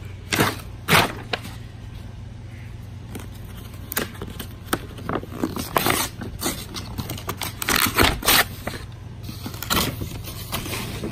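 Brown kraft paper wrapping being torn and pulled off a cardboard box: irregular bursts of sharp ripping and crinkling rustle.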